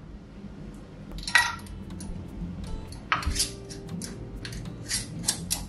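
Glass mason jars clinking and knocking against each other and the glass stovetop as they are set down and handled. There is one clink about a second and a half in, another around three seconds in, and several in quick succession near the end.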